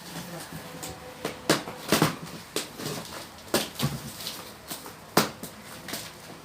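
Wrapping being peeled and torn off a packaged item, a string of sharp, irregular crackles and snaps.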